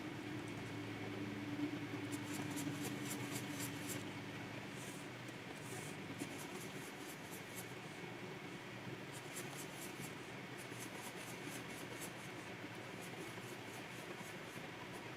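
Stylus nib scratching across a Wacom pen display in bursts of quick short strokes, several a second, with pauses between the bursts. A steady low hiss lies under it.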